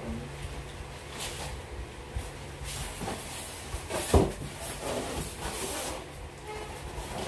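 Foam packing blocks being handled and pulled at the top of a large cardboard TV box, scraping and rustling against the cardboard, with one sharp knock about four seconds in.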